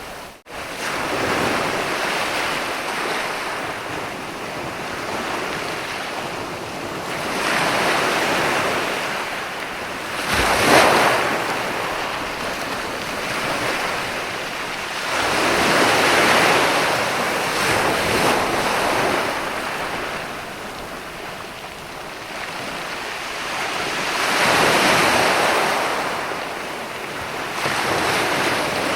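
Sea waves breaking and washing up onto a sandy beach, swelling and ebbing every few seconds. The sharpest, loudest break comes about eleven seconds in.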